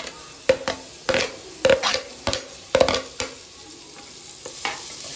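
A steel spoon scraping and clinking on a metal plate as sliced onions are pushed off into hot oil, with about six sharp knocks in the first three seconds. After that comes a soft, steady sizzle of the onions starting to fry.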